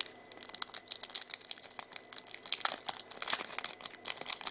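Foil booster-pack wrapper crinkling and crackling in rapid irregular bursts as hands try to tear it open.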